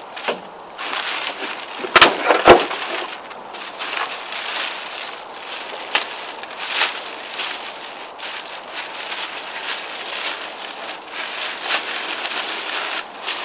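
Clear plastic packaging bag crinkling and rustling as a pair of neoprene chest waders is handled and pulled out of it, with two sharp snaps about two seconds in.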